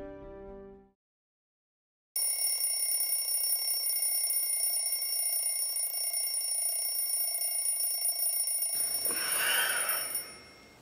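Phone alarm ringing, a steady high electronic tone that cuts off suddenly near the end, with some rustling just before it stops.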